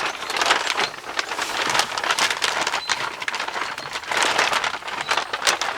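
Packaging rustling and crinkling as accessories are handled and unwrapped, with a dense run of crackles that swell and fade in bunches.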